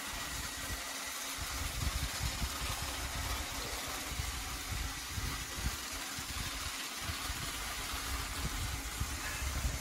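Battery-powered Trackmaster toy engine's motor running steadily, rumbling and clattering along plastic track.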